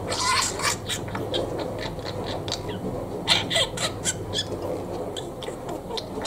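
Male lutino budgerigar mimicking human laughter: runs of short, rapid "ha-ha-ha" notes in about three bursts.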